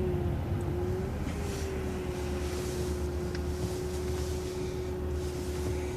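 Transit bus running, heard from inside: a steady low drivetrain rumble with a constant whine. A soft hiss swells twice.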